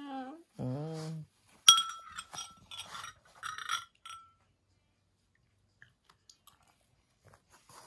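A metal spoon clinking and scraping against a glass bowl as soup is scooped. The first clink, about a second and a half in, is the sharpest and rings. A few more clinks follow over the next two seconds, then only faint ticks. A short bit of voice comes before them.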